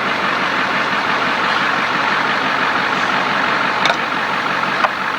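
A motor vehicle running with a steady engine drone and a hiss of road or wind noise, with two short clicks near the end.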